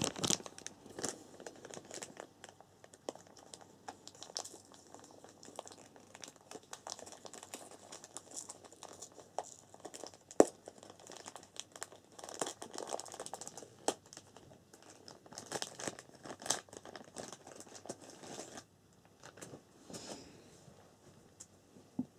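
Packaging crinkling and rustling as it is handled, with irregular crackles and clicks and one sharp click about ten seconds in; it dies down about eighteen seconds in.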